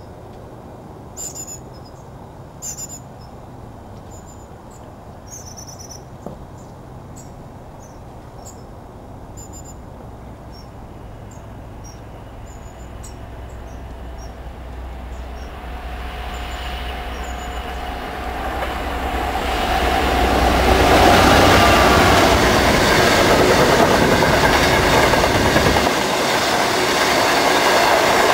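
Diesel freight locomotive approaching, its engine drone growing steadily louder until it passes, then a long rake of bogie hopper wagons rumbling and clattering by on the rails. Near the end the engine's low drone drops away, leaving the wagons' rumble. Birds chirp in the first half while the train is still distant.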